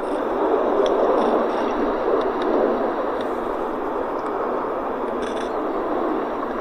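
Jet aircraft overhead: a steady rushing jet noise without a clear pitch, a little stronger for the first few seconds and then easing off slightly.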